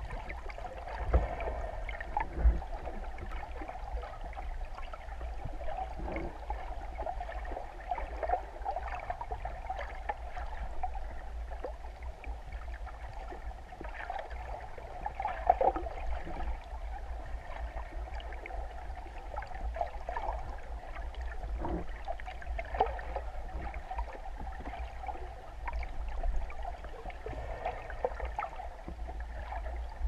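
Muffled underwater noise picked up by a camera in its housing on a speargun: a steady watery hiss and low rumble, with a few short knocks, the loudest about a second in, again at two and a half seconds and at about fifteen seconds.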